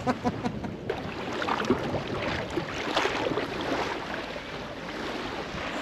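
Small waves lapping steadily at a lakeshore, a continuous wash sprinkled with small splashes.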